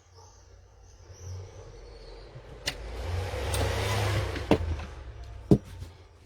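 Small USB-powered mini fan running, its airflow buffeting the microphone as a low rumble and rushing noise that swells for about two seconds in the middle and then fades, with a few sharp handling clicks.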